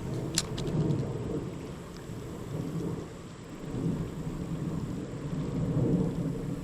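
Wind buffeting the microphone: an uneven low rumble that swells and fades, with one sharp click about half a second in.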